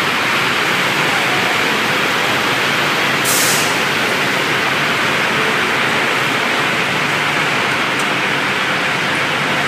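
Roller-type veneer dryer running with a steady, even noise, with a brief hiss about three seconds in.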